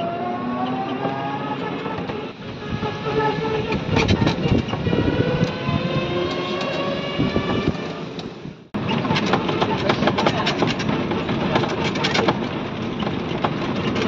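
Electric passenger cart moving, its motor whine slowly rising in pitch as it gathers speed, over the rattle of the cart's frame. About two-thirds in the sound breaks off abruptly and resumes as a denser clattering rattle.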